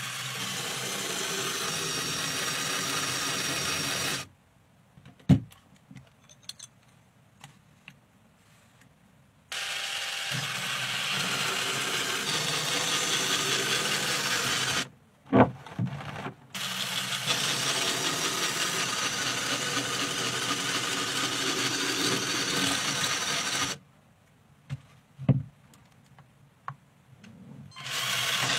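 Small electric motors and plastic gearing of a LEGO Technic car running in three stretches of several seconds each, a steady whirring whine. The motors stop twice in between, and each pause holds a single sharp knock.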